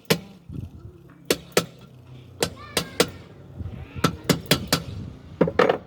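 A metal cooking pot being handled and worked on: about a dozen sharp, irregular metallic knocks and clinks, each ringing briefly, over a steady low hum.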